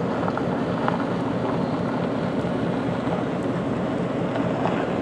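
Diesel locomotive engine idling steadily with a low, even hum.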